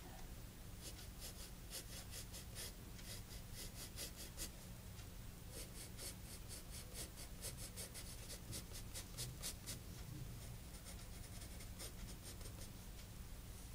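Pencil scratching on sketchbook paper in a run of quick, short strokes, thinning out after about ten seconds.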